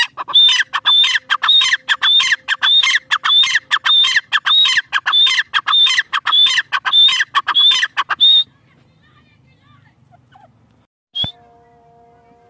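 Grey francolin (teetar) calling: loud, shrill calls repeated about twice a second for some eight seconds, each a high note falling away. Then a pause and one more single call near the end.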